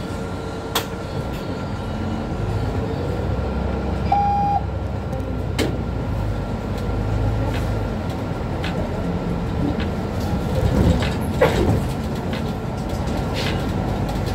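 Mercedes-Benz Citaro C2 city bus heard from inside the cabin while driving: a steady low engine and road rumble with a thin steady whine, sharp rattles and knocks from the body, and a single short beep about four seconds in.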